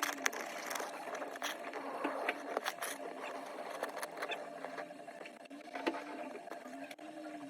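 Small tools and parts handled on an iPhone during a back glass repair: irregular light clicks, taps and scrapes over a faint steady hum.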